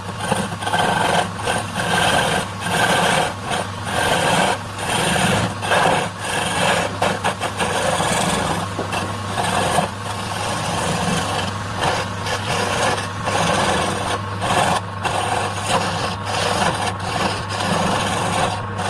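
Electric woodworking power tool running steadily, its motor humming, with irregular rough rasping surges as the tool bites into wood.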